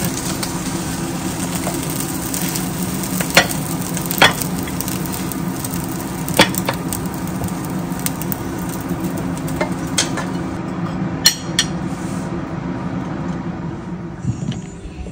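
Fried rice sizzling steadily in a nonstick frying pan, with a few sharp taps and scrapes of the wooden spatula as it is stirred. The sizzle dies down near the end.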